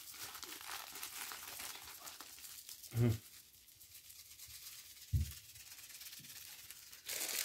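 Faint rustling and rubbing at a dinner table, with two brief low sounds about three and five seconds in.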